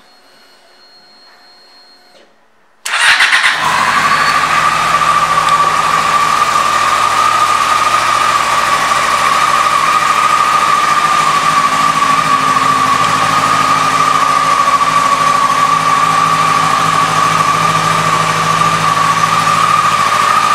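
Yamaha FZ6's 600 cc inline-four starting about three seconds in, catching at once and settling into a steady idle with a steady high-pitched whine running through it.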